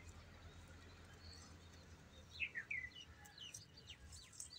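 Faint small birds chirping: a quick run of short falling chirps about two and a half seconds in, followed by several more brief high notes, over a low steady rumble.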